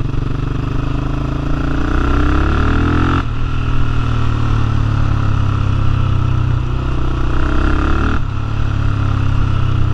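Yamaha Raptor 700R quad's single-cylinder four-stroke engine pulling through its freshly repaired exhaust while riding. The revs climb under acceleration and drop sharply at a gear change about three seconds in, climb again, and shift once more about eight seconds in.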